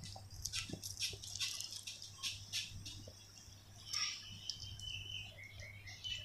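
Metal costume earrings clinking and jingling against each other, with a cardboard board rustling as they are handled: a run of light, irregular clicks and ticks.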